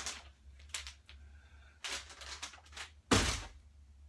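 Items being handled and set down on a table: a few short rustles and clatters, then one loud thunk about three seconds in as an object is put down.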